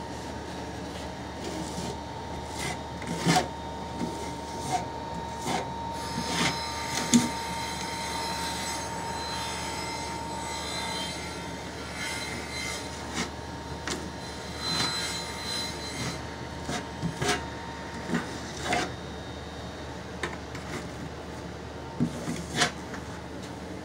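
Hand trowel spreading grout over a ceramic tile backsplash: irregular scraping of the trowel across the tile, with scattered sharp clicks and taps.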